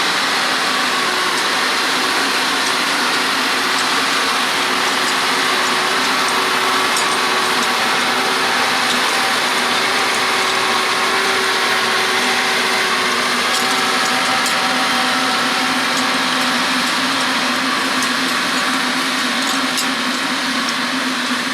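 John Deere 6R 185 tractor's diesel engine running steadily under load while pulling a six-furrow plough through the soil.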